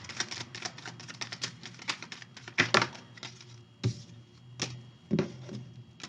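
Cards being shuffled by hand: a quick run of small clicks and taps for about three seconds, then a few scattered louder taps.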